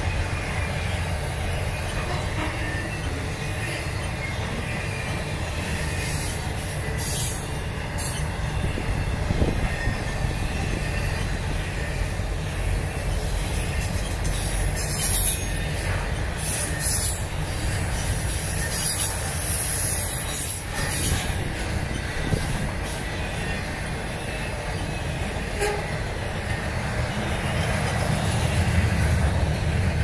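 Freight cars of an intermodal train rolling past at trackside: a steady low rumble of wheels on rail. Brief high-pitched wheel squeals come several times in the middle, the longest held for about a second.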